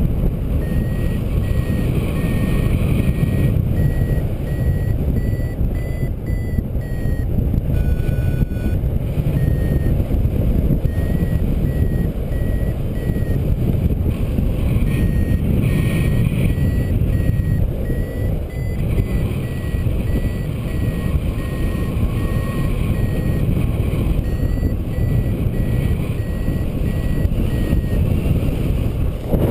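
Wind rushing over the camera microphone in flight, with a paragliding variometer giving a steady run of short high beeps, the tone it sounds while the glider is climbing.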